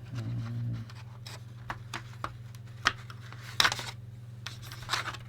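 Scattered light clicks and scrapes of hands handling a Commodore VIC-20's opened plastic case and keyboard while its keyboard connector is unplugged, with a louder click or two about three seconds in. A low steady hum runs underneath.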